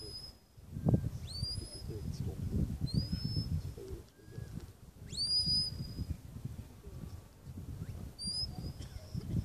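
A shepherd's whistle sounding short commands to a working sheepdog: about five notes, each sliding up and then holding, with the longest and loudest about five seconds in. Wind gusts rumble on the microphone underneath.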